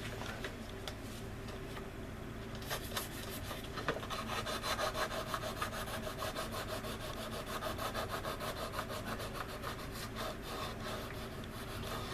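Sanding stick rubbing back and forth over the leading edge of a resin model-aircraft wing, in quick rasping strokes that grow louder and steadier from about three seconds in. The sanding works the fine resin shavings and glue into the wing seam to fill it.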